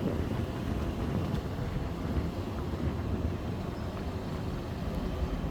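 Steady low rumble of a vehicle on the move, engine and road noise with no distinct events.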